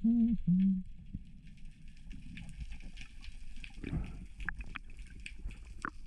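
Underwater sound from a spearfishing dive: a brief low hum in the first second, then steady water noise with scattered faint clicks and crackles.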